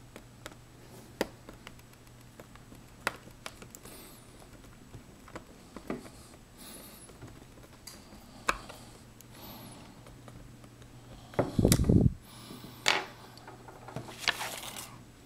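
Scattered clicks and taps of a screwdriver and small screws while the last screws are driven back into the underside of a plastic laptop case, over a low steady hum. Near the end comes a louder knock and a burst of handling noise as the laptop is moved.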